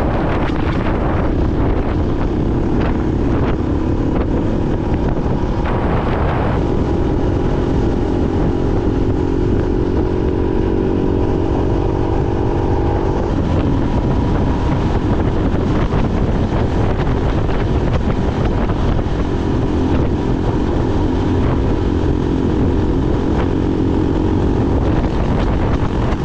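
Motorcycle engine running under way, with wind rumble on the microphone. The engine note steps up about six seconds in and drops back about halfway through.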